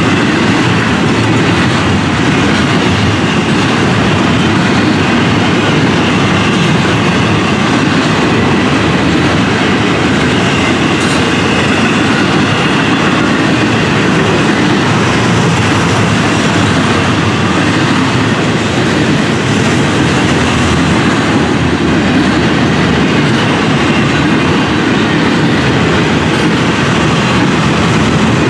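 Double-stack intermodal freight train's well cars rolling past close by: a steady, unbroken rumble of steel wheels on the rails.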